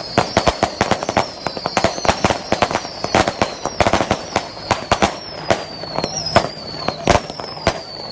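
Rapid, irregular sharp cracks and pops, several a second, with high whistles sliding down in pitch between them.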